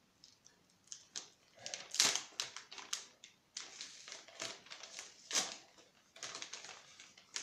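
A paper shipping envelope being torn open and handled, with irregular crinkling, rustling and tearing, loudest about two seconds in.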